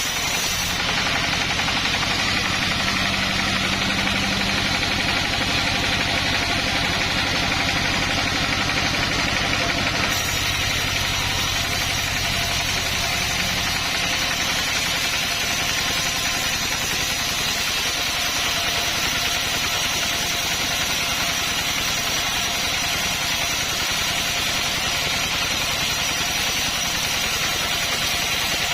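Chainsaw engine of a homemade sawmill running steadily, with a fast even firing rhythm; a low hum underneath fades out about thirteen seconds in.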